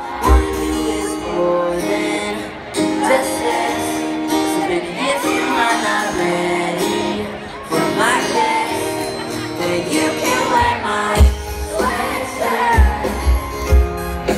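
Live pop music over a stadium PA heard from the crowd: singing over sustained keyboard chords, with a kick-drum beat coming in about eleven seconds in.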